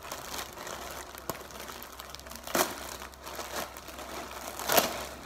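Clear plastic polybag crinkling and rustling as it is handled and opened to take out a dress. There are louder crackles about two and a half seconds in and again near the end.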